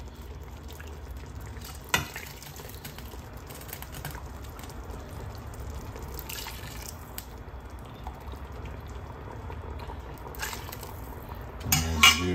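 Fish stock being ladled into a steel soup pot: liquid pouring and splashing, with a stainless steel ladle clinking against the steel pots. A sharp click comes about two seconds in, and the loudest clatter of the ladle against the pot comes near the end.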